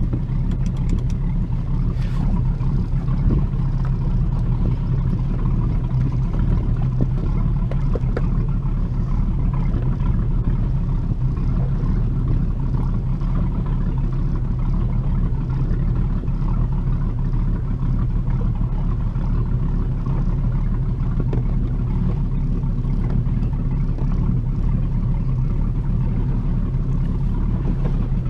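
Rinker Captiva 21-foot boat's stern-drive engine running steadily while under way, a constant low hum.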